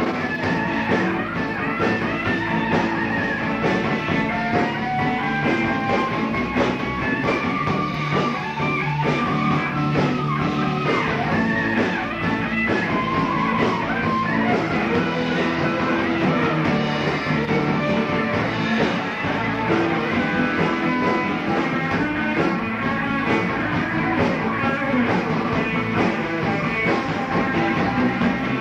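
Live rock band playing: an electric guitar lead winds over bass and a steady drum beat, with a dull, old-tape sound lacking any top end.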